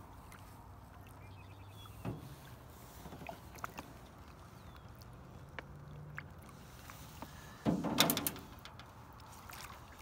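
Water sloshing at the side of a small aluminium boat as a big common carp is held by the lip at the surface. A sharp knock about two seconds in, and a loud splash near the end as the carp thrashes while being gripped and lifted.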